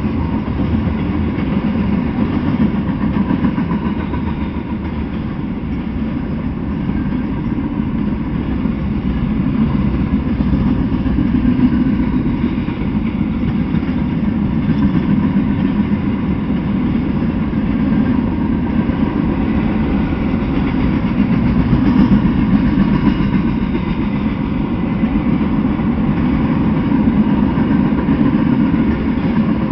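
Freight train passing at close range: the steady, loud running noise of steel wheels on the rails as tank cars and lumber-laden centerbeam flatcars roll by, with no letup.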